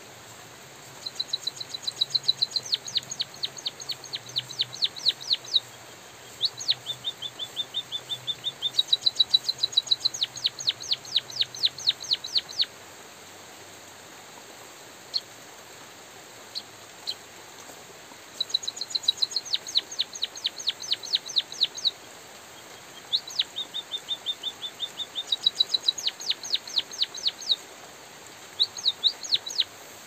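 White-headed munia singing: several phrases of a few seconds each made of rapid, evenly spaced high clicking notes, about six a second, with a pause of several seconds in the middle broken by a few single notes. A steady hiss of light drizzle runs underneath.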